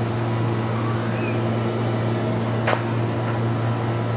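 Steady low mechanical hum, with one short click about two and a half seconds in.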